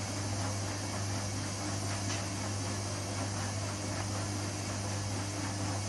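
Samsung WW80J5555FWEU washing machine running through a wash, a steady low hum with an even hiss over it.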